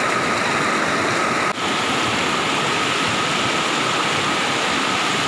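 Swollen river rushing through rocky rapids: a steady, loud wash of water that cuts out for an instant about one and a half seconds in.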